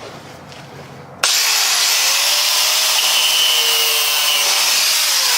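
Angle grinder starting about a second in and cutting metal, a loud steady hiss with a faint whine.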